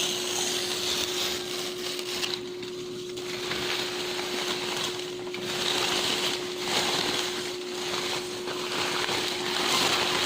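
Sheets of clean bond paper being torn in long, crisp rips, with short breaks between tears. A steady low hum runs underneath.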